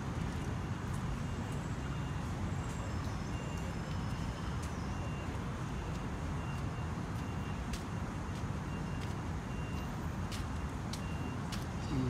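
Steady low rumble of city traffic, with faint short high-pitched tones repeating about twice a second and a few faint clicks.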